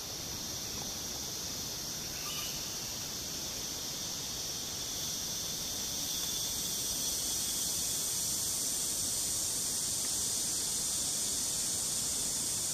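Insects buzzing in a steady high-pitched chorus, growing louder about six seconds in.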